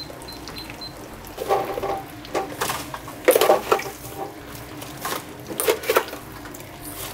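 A few short high beeps in the first second, then irregular clinks and clatters of a stainless steel pot and ladle being handled at the stove.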